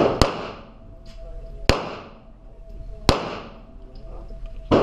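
Glock 19 9mm pistol firing single shots, about four in all, roughly a second and a half apart, each crack ringing out in the echo of an indoor range.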